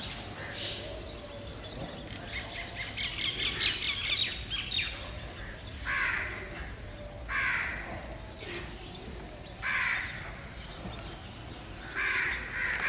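Birds calling: a busy twittering of small birds, with four short, harsh calls spaced a second or two apart.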